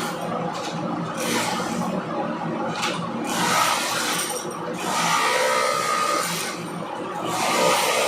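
Power drill boring holes, the bit grinding and scraping through the material in uneven spells.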